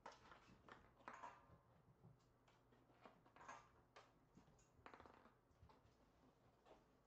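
Near silence, broken by faint scattered clicks and rattles as kittens play with toys on a tile floor.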